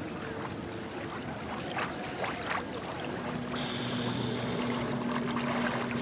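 Shallow Dead Sea water splashing and lapping around a bather. A steady low hum joins about three seconds in.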